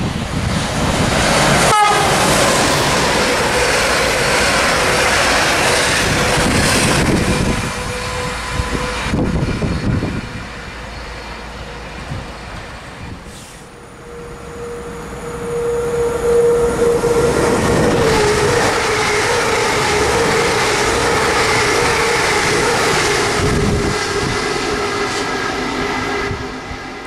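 Fast electric passenger trains passing through a station at speed, wheels clattering on the rails over a loud rush of noise, with a steady pitched tone from the train and a horn sounding. A first train passes at the start, it goes quieter in the middle, and a second pass builds up from about halfway through.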